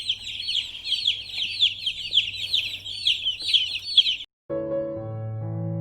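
Baby chicks peeping constantly, many high overlapping peeps. About four seconds in, the sound cuts off and soft piano music begins.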